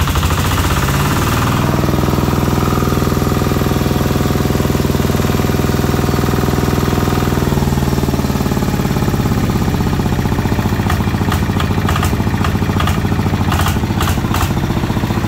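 Kubota RT140 single-cylinder diesel engine running, revved up over the first couple of seconds, held at higher speed, then eased back to a steady lower speed about eight seconds in, with a few light clicks near the end. The seller calls the engine sound very smooth, a sign of a little-used, never-opened engine.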